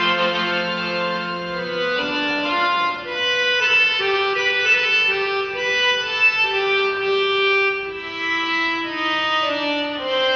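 Accordion playing a slow baladi melody of long held notes, one after another, with no drum beat.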